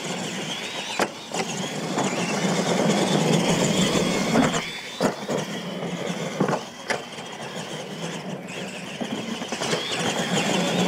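Radio-controlled monster trucks racing, their motors giving a high whine that wavers in pitch, with several sharp knocks along the way.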